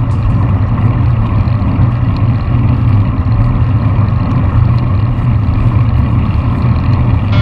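Steady low wind rumble buffeting a GoPro action camera's microphone as it moves along the road.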